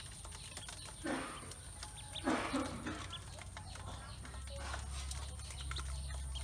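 A brood of ducklings feeding in an aluminium basin: many small taps and scrapes of bills pecking feed off the metal, with two louder scrabbling bursts about one and two seconds in and an occasional faint peep.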